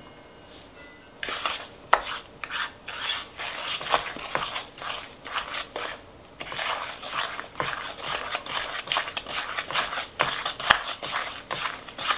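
Wooden spoon beating thick butter-sugar-molasses batter by hand in a mixing bowl: quick, rhythmic scraping and knocking strokes against the bowl's side. The stirring starts about a second in and stops briefly midway before going on.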